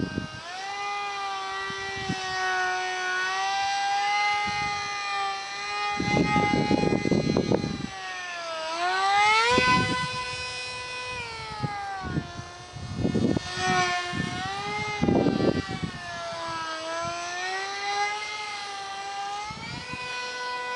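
Ultra-micro RC jet's small electric motor and propeller whining in flight, the pitch sliding up and down with throttle as it manoeuvres. Wind buffets the microphone in a few short low gusts.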